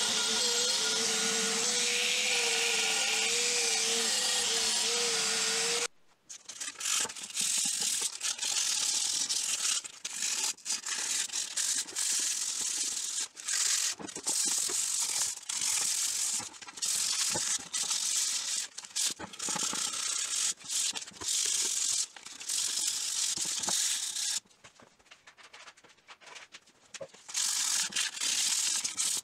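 Sandpaper rubbed by hand along the steel handle of old Knipex pincers: quick back-and-forth strokes in runs with short breaks, and a longer pause shortly before the end. Before it, for about the first six seconds, a motor-driven tool runs with a slightly wavering pitch and then stops abruptly.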